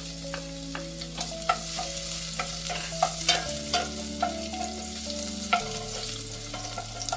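Garlic sizzling in hot cooking oil in a pot as it is sautéed and stirred, the utensil clicking against the pot about twice a second.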